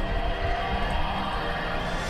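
Background music with held tones over a low pulse.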